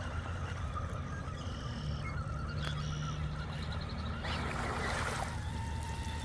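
RC rock crawler with a Hobbywing 1800 SE brushless motor whining as it drives through shallow water, with a splashing rush about four seconds in as its tyres churn out onto the gravel bank.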